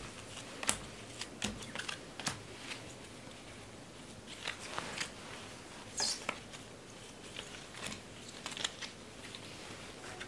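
Playing cards being handled and laid down on a glass-topped table: a string of light, irregular snaps and flicks over a faint room hiss.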